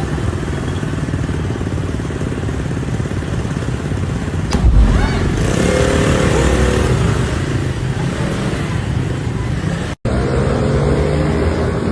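A motor vehicle engine runs steadily, with a sudden low thump about halfway through followed by a rushing noise.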